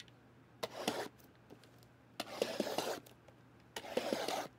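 Card box packaging being torn open and handled, in three short rustling, scraping bursts.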